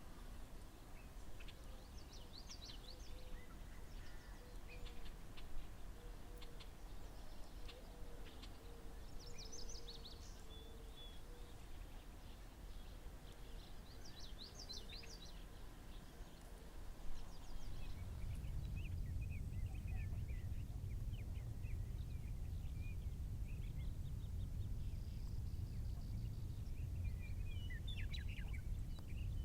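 Small birds chirping and calling in short scattered bursts over a steady outdoor background. A little over halfway through, a low rumble comes up and holds steady under the calls.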